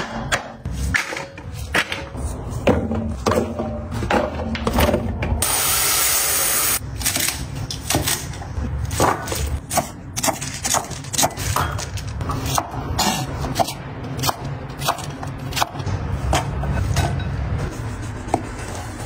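Chinese cleaver chopping on a wooden cutting board: many sharp knocks of the blade on the wood at uneven spacing, with a brief loud hiss about five and a half seconds in.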